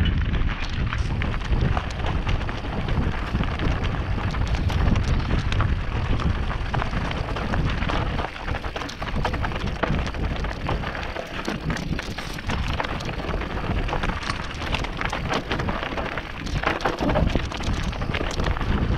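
Mountain bike rolling down loose, rocky singletrack: a continuous crackle and clatter of knobby tyres and the bike over small stones, with a low wind rumble on the camera microphone.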